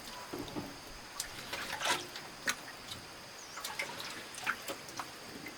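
Water splashing and dripping in small, irregular splashes, a few each second, over a faint steady high hiss.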